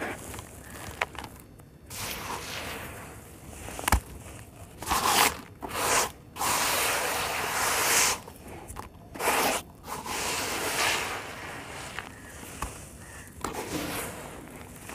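Dry sand-cement chunks and red dirt crumbling and pouring through hands into a basin: gritty crunching and scraping in irregular bursts, with a sharp knock about four seconds in.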